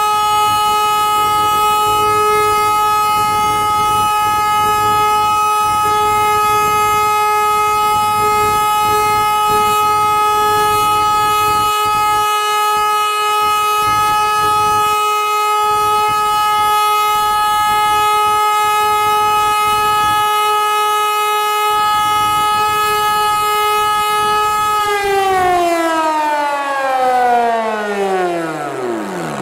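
Hörmann HLS 273 compressed-air siren sounding the all-clear signal: one steady, loud, high tone with strong overtones. About 25 seconds in it winds down, the pitch falling steeply away as the rotor slows.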